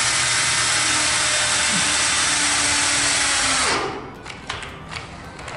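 Cordless drill-driver running steadily as it drives a self-tapping screw through a steel hanger bracket into a galvanized drywall profile. It stops abruptly about three and a half seconds in, and a few light clicks and knocks follow.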